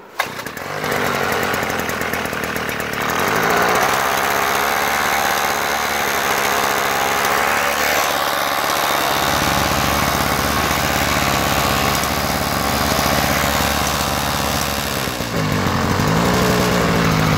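Uberscoot 50cc scooter engine pull-started cold with the choke on, catching at once and running on choke. Its speed picks up about three seconds in, then dips and climbs again near the end.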